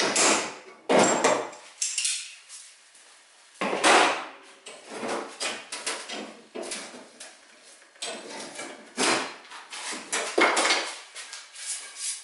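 Irregular metallic clanks, clicks and rattles as clamps and locking pliers are handled and released on a steel van body panel, with several sharp louder knocks among them.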